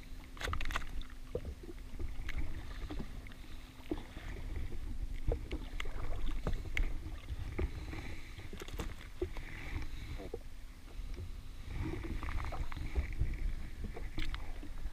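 Small-craft water sounds from an anchored jet ski: a steady low rumble of water slapping the hull and wind on the microphone, with scattered short clicks and knocks from hands working a hook and soft-bait rig free from a gurnard.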